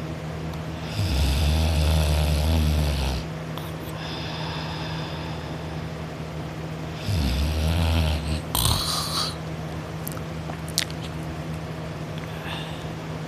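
A person snoring in their sleep: two snores, the first about two seconds long and the second about a second, roughly six seconds apart, with a short sharper noise just after the second. A steady low hum runs underneath.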